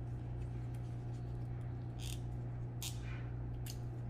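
A few light clicks and taps from handling an injection pen and its needle, over a steady low hum.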